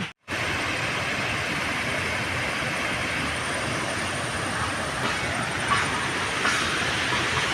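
Steady rush of heavy rain and running water, starting abruptly just after a brief cut at the start.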